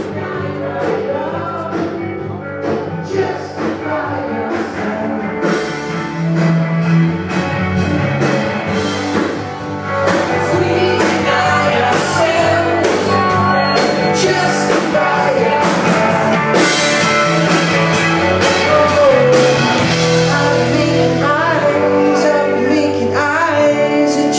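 A rock band playing a song, with drums, electric guitar and keyboard and a singing voice; it grows fuller and louder about ten seconds in.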